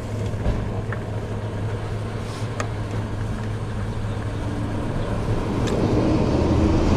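Fuel dispenser pumping fuel through its hose and nozzle into a container, a steady low hum with a few light clicks. The noise grows louder toward the end.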